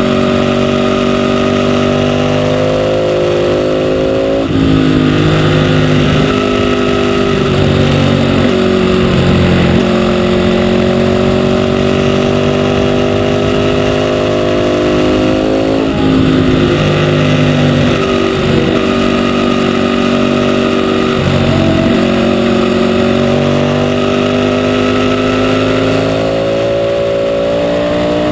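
Ducati 848's L-twin engine under hard riding, picked up by a camera on the bike: the engine note climbs and falls through the corners, with several abrupt breaks in pitch as gears change, over a steady rush of wind.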